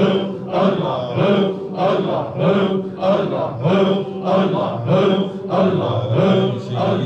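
Male voices chanting a short devotional phrase over and over in a steady, even rhythm, about one phrase every two-thirds of a second.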